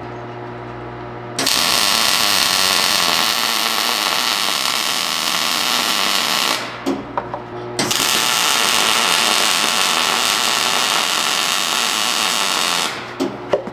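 Electric arc welding: two continuous welds, each about five seconds long, with the arc crackling steadily. These are the welds fixing the steel rose's leaves onto its stem.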